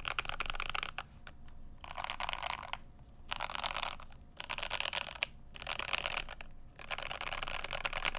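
Typing on a GMMK Pro mechanical keyboard with lubed CannonKeys Lavender switches. Quick keystrokes run for about the first second, then come in five bursts of rapid clacking with short pauses between them.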